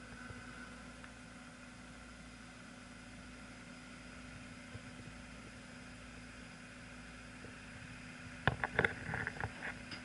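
Tracked accelerated weight drop seismic vehicle's engine running steadily with a constant hum. A quick cluster of sharp knocks and rattles comes near the end.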